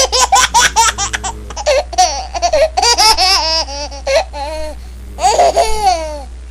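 High-pitched, squealing laughter: a quick run of laugh pulses at the start, then drawn-out rising and falling laugh sounds with short pauses, over a steady low hum.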